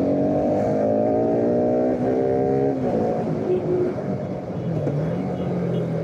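Bajaj Pulsar RS200's single-cylinder engine pulling under way, its pitch climbing steadily with a brief dip about two seconds in. The revs drop away about three seconds in, and it runs on at lower revs.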